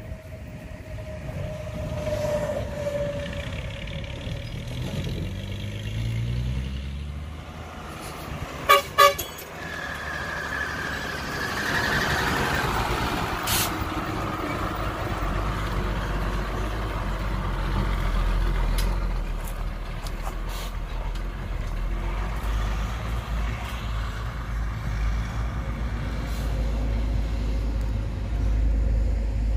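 Diesel dump truck driving up and past, its engine rising in pitch as it speeds up, with two short horn toots about nine seconds in. Its low engine rumble then carries on as it pulls away.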